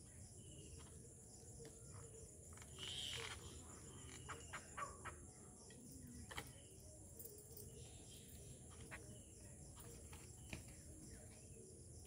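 Faint sounds of small birds feeding on grain: scattered short taps of beaks pecking on a hard surface, with a brief bird call about three seconds in, over a steady high insect hiss.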